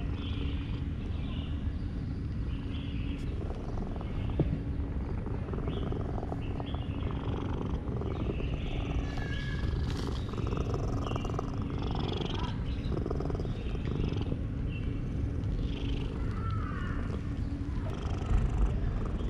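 Domestic cat purring loudly and steadily while being stroked.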